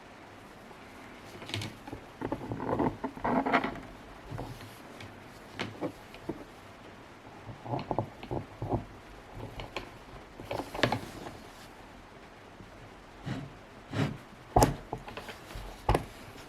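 Irregular clicks, knocks and rustles of hands handling hard plastic parts, with a few sharper knocks near the end.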